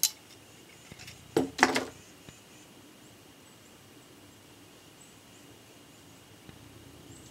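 Handling clicks and knocks from a .44 replica percussion revolver as it is turned and held up to look down the bore: one sharp click at the start and a short cluster of knocks about a second and a half in. A faint steady high hum runs underneath.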